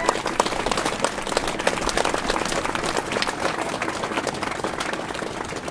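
Large crowd applauding, a dense patter of many hands clapping that eases off slightly near the end.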